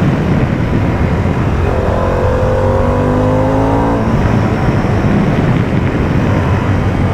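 Harley-Davidson Pan America's Revolution Max 1250 V-twin engine under way. Its note climbs steadily as the bike accelerates for about two seconds, then drops sharply about four seconds in.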